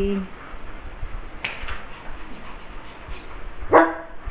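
A dog gives a single short bark near the end, after a brief light tap.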